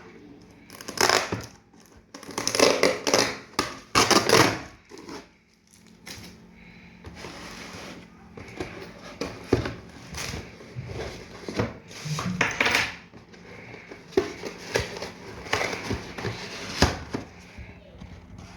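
Product packaging being opened by hand: cardboard and wrapping rustling and crinkling in loud bursts for the first few seconds, then a quieter stretch of handling with scattered sharp clicks and knocks.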